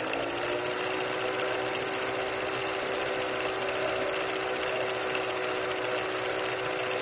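A steady mechanical hum, like a small motor running, over a constant hiss.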